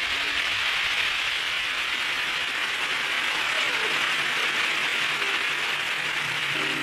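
Audience applauding, a steady, dense clapping with no music under it.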